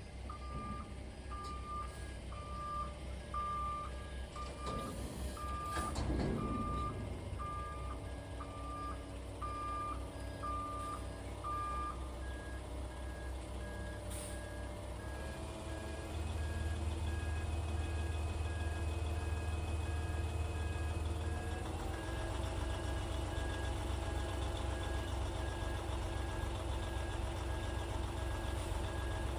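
Truck backup alarm beeping about once every three-quarters of a second for roughly the first twelve seconds, over a running truck engine that gets louder about sixteen seconds in and stays up.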